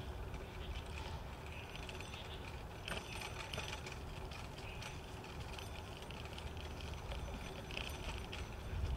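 Shared bicycle rolling along a paved path: steady tyre noise and a light rattle of loose parts, with a denser clatter about three seconds in, over a low wind rumble on the microphone.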